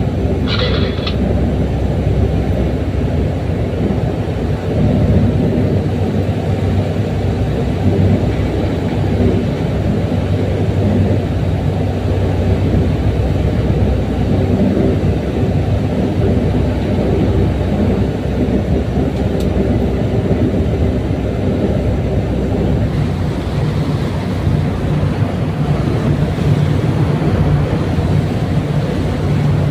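Tugboat's diesel engine running steadily under way, heard from the wheelhouse as a loud, low, even drone. In the last few seconds the rush of churning wake water joins it.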